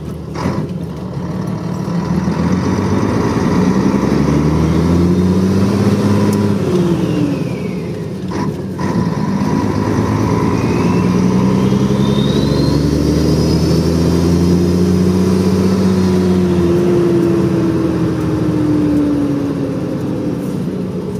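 1975 Scania truck's turbocharged diesel engine, running without its air filter fitted, pulling up through the gears with its pitch rising. There is a short break for a gear change about eight and a half seconds in, then it climbs again with a thin rising turbo whistle before easing off near the end.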